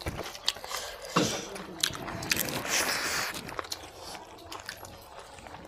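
Close-up mouth sounds of people eating rice and mutton curry by hand: wet chewing and lip-smacking, heard as irregular sharp clicks, with a longer hiss-like stretch a little before halfway.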